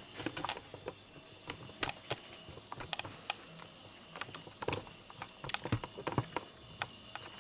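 Fabric cat tunnel crinkling and rustling in irregular bursts of light clicks as a cat shifts about inside it.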